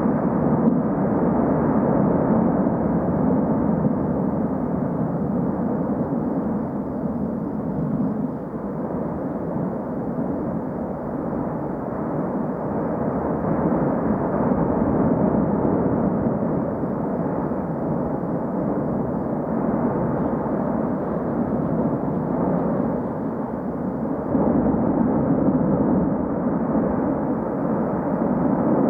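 Cumbre Vieja volcano erupting: a continuous deep roar that swells and eases a little, without separate bangs.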